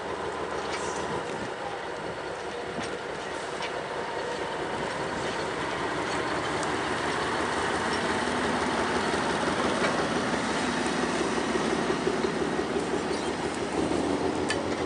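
Narrow-gauge diesel locomotive pulling a passenger coach past: the engine's steady drone grows louder as it approaches and goes by, with the rumble of the wheels on the track and a few sharp clicks.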